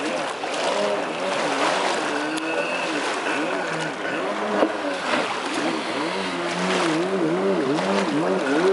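Kawasaki X2 personal watercraft's two-stroke twin engine revving up and down in quick repeated swings, about twice a second, as it carves and hops across the water, over the hiss of spray.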